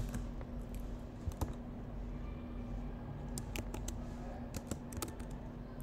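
Typing on a computer keyboard: irregular keystrokes in short runs, over a faint steady hum.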